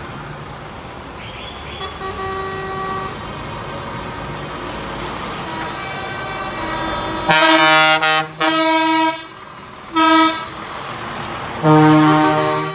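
Air horns of passing DAF trucks blowing four loud held blasts in the second half, the second one the longest, over the running of truck engines. Fainter horn tones sound before them.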